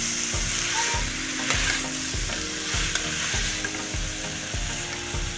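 Potato and cauliflower pieces sizzling in a hot pan with oil and masala while being stirred and turned with a metal spatula.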